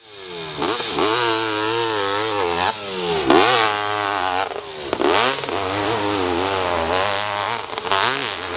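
Off-road motorcycle engine revving hard on a hill climb, its pitch wavering and dropping sharply several times before picking up again as the throttle is worked.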